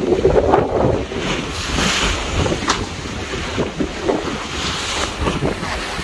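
Strong wind buffeting the microphone over the wash of rough sea waves, with a steady rumble and rising and falling surges of spray-like hiss.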